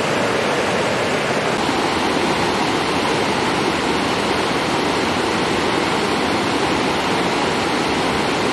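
Mountain river rushing over rocks and boulders: a steady, loud rush of white water.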